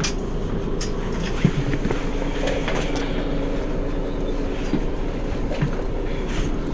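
Mercedes-Benz Citaro G C2 articulated bus's diesel engine idling steadily while the bus stands, with a few light clicks.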